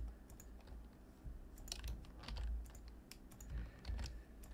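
Computer keyboard typing: scattered light key clicks, faint and irregular.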